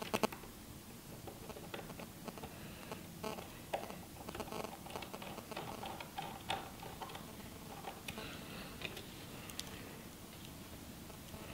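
Faint, irregular small clicks and taps of a precision screwdriver driving tiny screws into the metal cover over the earpiece speaker and front camera of an iPhone 6 screen assembly, with light handling of the small metal parts.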